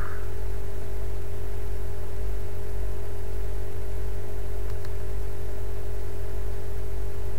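Steady background hum and hiss with a low rumble, and a faint single mouse click about five seconds in.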